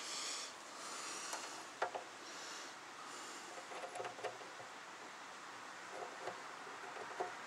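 Faint small clicks and rubbing as a bonnet-release cable and its plastic fittings are handled and threaded into the latch, a few scattered ticks about two seconds in, a cluster around the middle and more near the end, over a steady background hiss.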